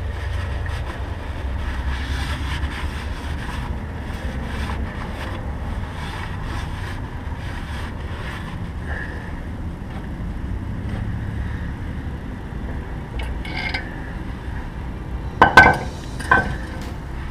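Handling noise from work on an open differential housing: a steady low rumble under faint rubbing and scattered small clicks, then two sharp knocks about a second apart near the end.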